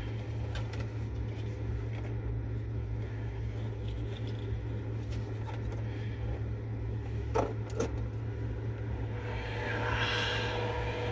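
Steady low mechanical hum inside a vehicle cabin, with a couple of sharp handling clicks about seven seconds in and a man's short vocal sound, like a laugh, near the end.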